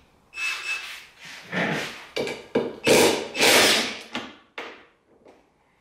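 Cordless 20V impact driver working bolts loose on a front-load washing machine's tub, in a series of short trigger bursts, the loudest about three to four seconds in.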